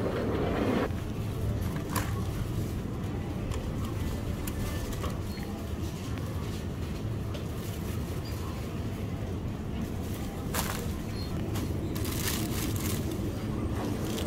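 Supermarket ambience: a steady low hum and rumble, with a couple of sharp clicks and some rustling as produce is handled and dropped into a plastic shopping basket.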